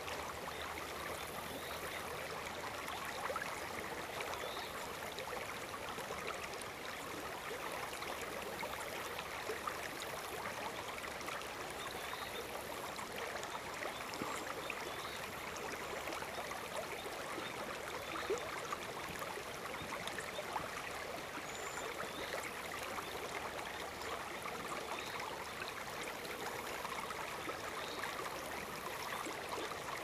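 Shallow river water running over stones: a steady, even rushing babble.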